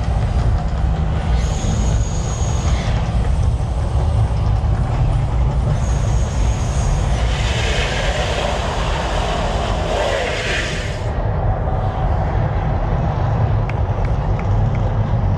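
The Mirage volcano show's eruption effects: a deep, steady rumble with two long stretches of loud hissing rush over it, the second about halfway through.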